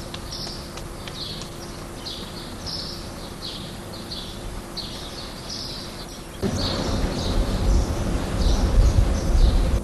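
Small birds chirping, with short high calls repeating every half second or so over steady outdoor background noise. About six and a half seconds in, a louder low rumbling noise comes in under the chirps.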